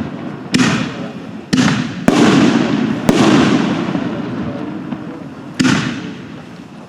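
60-gram neon canister shells from an Apocalypse kit going off one after another: five sharp bangs, four within the first three seconds and a fifth after a longer gap, each trailing off in an echoing rumble.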